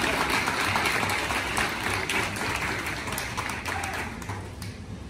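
Audience applause, a dense patter of hand claps that thins and dies away about four seconds in.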